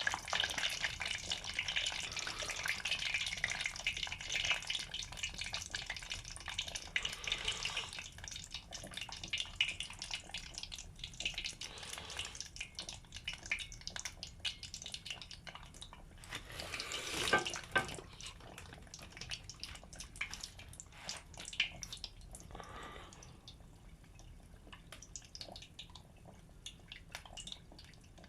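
Croquettes deep-frying in oil in a tempura pot, a steady sizzle with crackles, loudest at first and slowly dying down as the freshly added croquettes cook. A brief louder rustle about seventeen seconds in.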